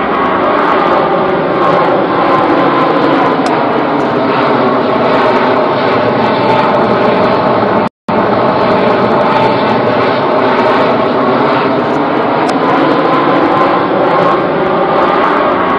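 Airbus A380's four jet engines running at high power as the airliner passes low over the runway, a steady loud jet noise whose tone slowly sweeps down and back up. The sound cuts out for an instant about halfway through.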